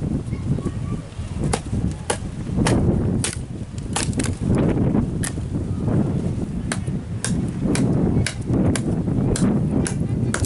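Ka-Bar BK3 TAC Tool, a heavy fixed-blade knife, taking repeated hard blows, about two sharp strikes a second with a short break a little past the middle, over a steady low rumble.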